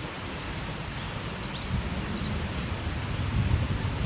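Outdoor ambience: a steady hiss with a low rumble that grows louder in the second half, and a few faint, short, high bird chirps a little over a second in.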